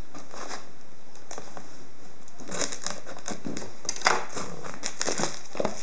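Clear plastic shrink-wrap being worked off a cardboard box by hand, crinkling and crackling irregularly, sparse at first and busier from about halfway in.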